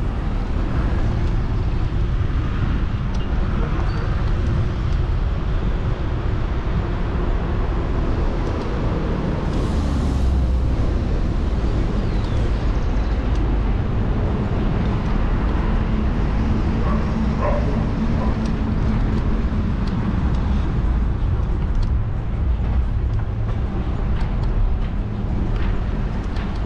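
Steady low rumble of riding a bicycle along a city street, with the noise of road traffic around it. A brief louder rush comes about ten seconds in.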